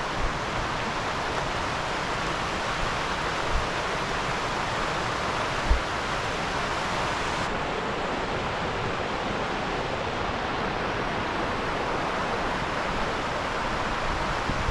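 Creek water rushing steadily, with a couple of short low thumps a few seconds in.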